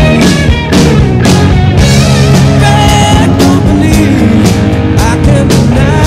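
Rock song with electric guitar, drums and singing, with a steady beat.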